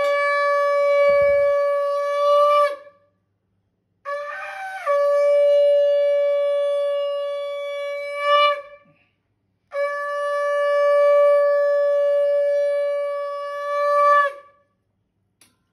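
Conch shell (shankha) blown in three long blasts during a Hindu puja. Each blast is a single steady note that swells briefly just before it cuts off.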